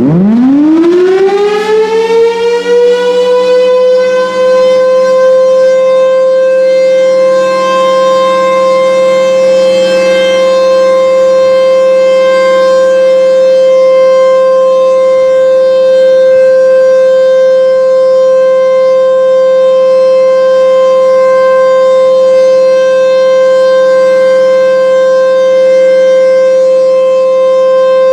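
Federal Signal Thunderbolt 1000B tornado siren winding up from a low growl to a steady, loud high wail over about four seconds, then holding one even tone. Its horn is not rotating, a fault the siren is known to have.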